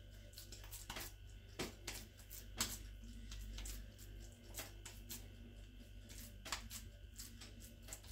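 Hands patting and shaping raw minced meat into patties: soft, irregular slaps and clicks, the loudest about two and a half seconds in, over a low steady hum.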